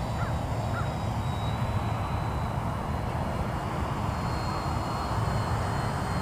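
Radio-controlled Extra aerobatic model plane's engine droning steadily in flight at a distance, a thin high whine over a low rumble.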